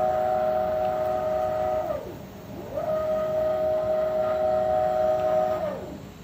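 DIY CNC router's stepper motors whining as they drive an axis along its ball screw: the pitch rises as the axis speeds up, holds steady, then falls as it slows to a stop about two seconds in. A second move of the same kind follows a moment later and winds down near the end.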